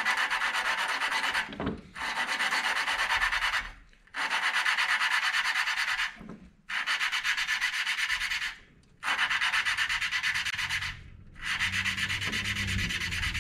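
Valve grinding compound rasping between a Tecumseh engine's exhaust valve and its seat as the valve is lapped with a suction-cup lapping stick spun back and forth between the palms. The gritty sound comes in bouts of about two seconds with brief pauses between; the grit is the compound still cutting the valve face to seat.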